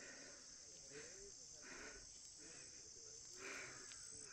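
Faint, steady high-pitched insect chirring, with faint indistinct sounds beneath it.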